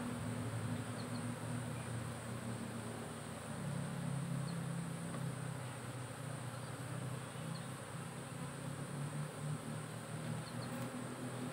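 Asian honey bees (Apis cerana) buzzing in a steady, slightly wavering low hum around an opened hive.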